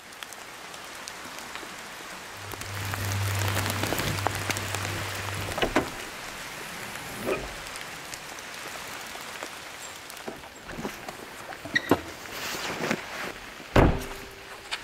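Steady rain falling, with a few knocks and clunks of gear being handled at a car. The loudest is a thump near the end as the SUV's rear hatch is shut.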